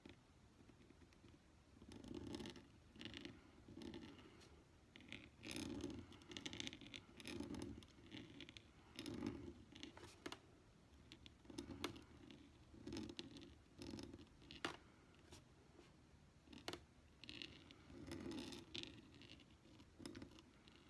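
Faint scratching of a Brause 511 steel pointed nib across envelope paper, in a series of short, uneven pen strokes, with a few light clicks.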